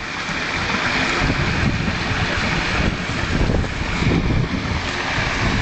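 Garden pond waterfall: water splashing steadily over weathered limestone rocks into the pond, with gusts of wind buffeting the microphone.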